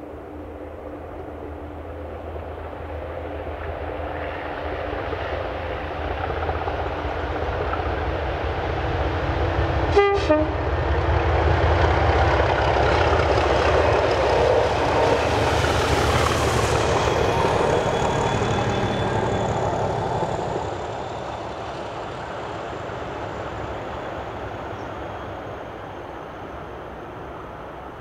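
Class 37 diesel locomotives top-and-tailing a railhead treatment train pass by, the engine and wagon noise building to a peak and then fading as the train moves away. One short horn toot sounds about ten seconds in, and a thin high whine lingers as the train recedes.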